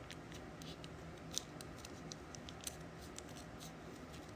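Faint light clicks and ticks of trading cards being handled, a few sharper ticks scattered through, over a low steady room hum.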